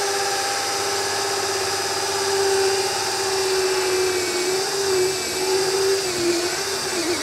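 Cordless drill running steadily as it bores a hole through the roof deck for a pipe. The motor's pitch wavers and dips in the second half as the bit bites under load.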